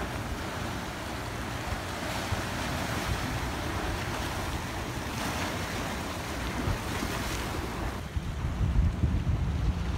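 Ocean surf washing onto a beach in slow swells, with wind buffeting the microphone, the wind rumble growing stronger near the end.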